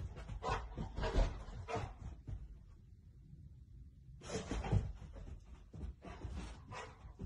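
A Rottweiler barking in a quick run of short barks, pausing for about two seconds, then barking again in another run.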